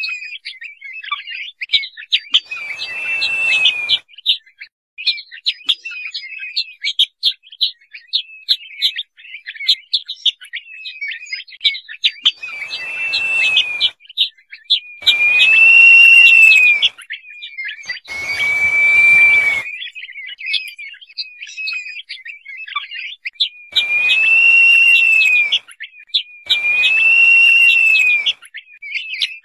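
Crested partridge (roul-roul) calling: six drawn-out whistled notes that rise and fall in pitch, each about a second and a half long, stand out over a continuous stream of rapid short chirps.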